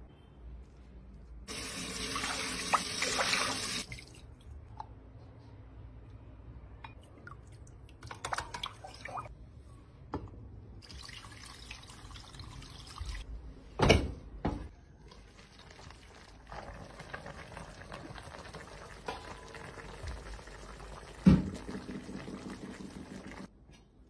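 Water poured from a jug into a cooking pot, splashing onto a plate that holds down stuffed vegetables and grape-leaf rolls. It comes in several separate pours, with two sharp knocks of crockery or pot in between.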